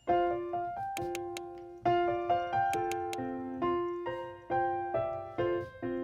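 Background music: a light piano or keyboard melody of single notes struck one after another, each fading, with a few short clicks among them.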